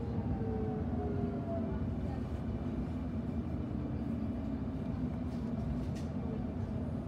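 Interior of a Sydney Trains Millennium electric train slowing into a station: a steady rumble of the running train, with the traction motors' whine gliding down in pitch and fading out about halfway through as the train brakes.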